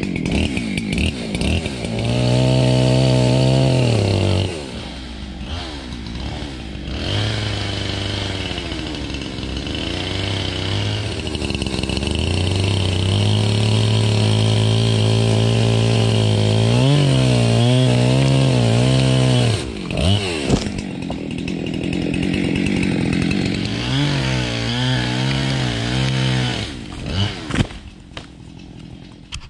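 Redmax two-stroke chainsaw cutting into a tree trunk at full throttle in long stretches, its engine pitch sagging and wavering as the chain bites into the wood. It drops back briefly a few times between cuts and is quieter near the end.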